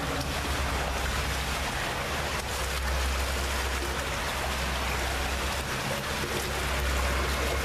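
Steady rush of water flowing through a tunnel, with a low rumble underneath.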